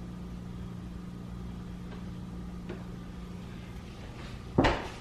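Steady low hum of a running kitchen appliance, with one sudden loud knock or clatter near the end.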